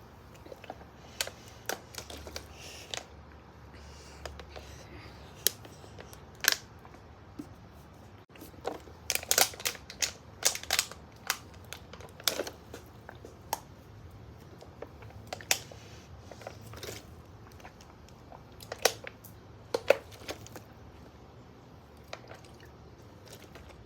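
Plastic water bottle crinkling and crackling as it is drunk from and squeezed, in sharp irregular clicks that bunch together about nine to eleven seconds in and again near twenty seconds.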